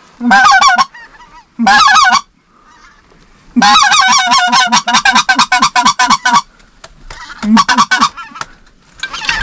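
Hand-blown goose call worked in quick runs of short notes that waver in pitch, four runs separated by brief pauses, the longest nearly three seconds in the middle. It is calling to circling geese to bring them into the decoys.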